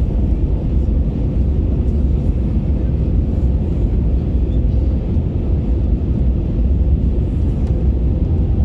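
Steady low cabin rumble of an Airbus A321neo in flight on approach: engine and airflow noise heard inside the cabin over the wing, with a faint steady hum.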